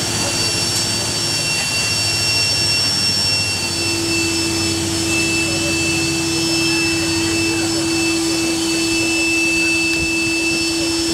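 Steady, loud rushing machine noise, like a blower running, with faint high whistling tones; a steady hum joins it about four seconds in.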